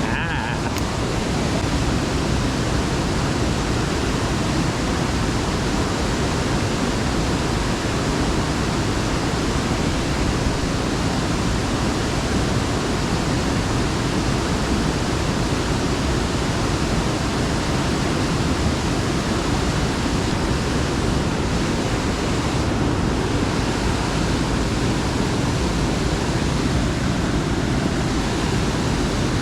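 Steady rush of flowing water, an even noise without breaks or distinct events.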